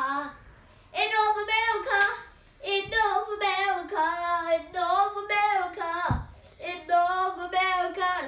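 A young boy singing an improvised song solo and unaccompanied, in long drawn-out notes with wavering pitch, broken into phrases by short pauses. Two soft low thumps fall between phrases, about three and six seconds in.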